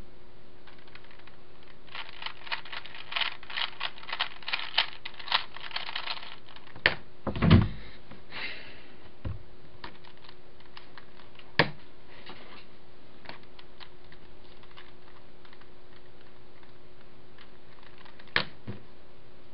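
Plastic 3x3 Rubik's cube being turned rapidly, its layers clicking in quick runs like typing, with a few sharp knocks on the table; the loudest, a dull thump, comes about seven and a half seconds in. A steady low hum sits under it all.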